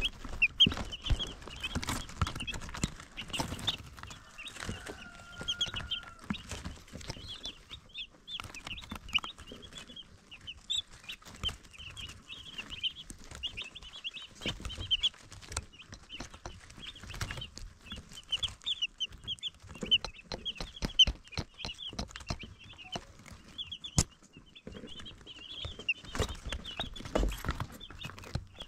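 Baby chicks peeping: many short, high chirps overlapping in quick succession, with frequent sharp clicks and taps among them.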